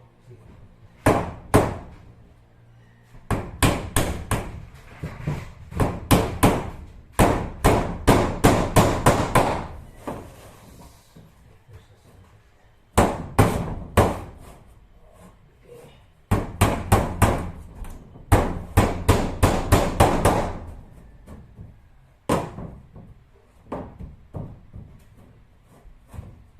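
Hammer driving nails while cement-board ceiling panels are fixed in place: runs of rapid blows, about three a second, separated by pauses, with lighter, scattered strikes near the end.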